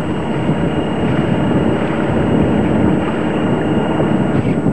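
Steady rumbling noise aboard a Grand Soleil 39 sailboat under way: wind rushing over the microphone, mixed with the drone of the boat's engine while motoring.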